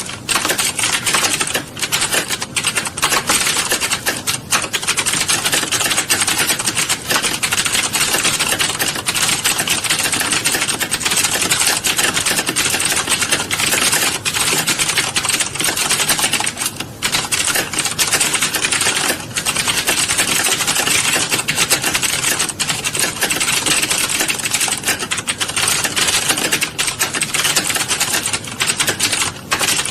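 Rapid, continuous typing on a keyboard, many keystrokes a second, with a few brief pauses.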